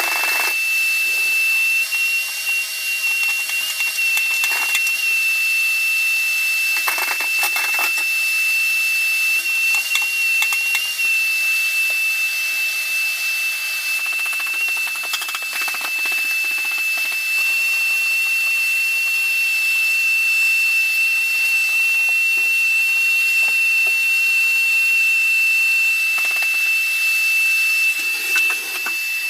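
Vacuum cleaner motor running with a steady high whine, sucking calcium scale out of an electric water heater tank through a hose and PVC pipe, with several brief rattles as the scale is drawn through.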